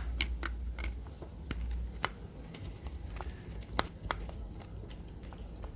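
Scattered small clicks and taps of a screwdriver working on an angle grinder's housing while the two screws holding the field coil are taken out. The two loudest clicks come about 2 and 4 seconds in, over a faint low hum.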